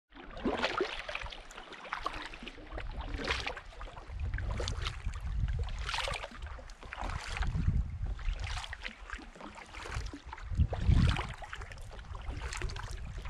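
Double-bladed kayak paddle dipping and splashing in the water, a stroke about every second or so, with wind buffeting the microphone in low rumbling gusts.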